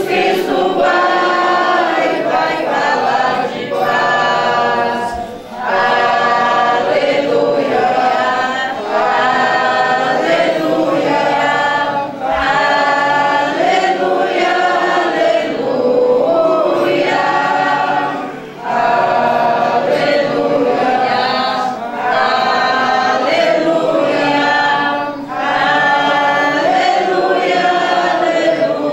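A congregation singing a hymn together in sung phrases, with short breaks for breath every few seconds.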